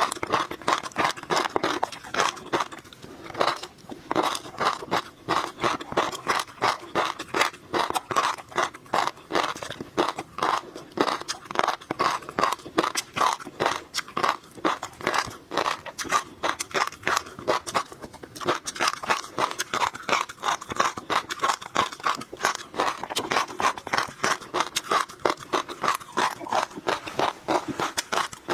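Close-miked chewing of tobiko flying fish roe: a rapid, unbroken run of small crunches and pops as the eggs burst between the teeth.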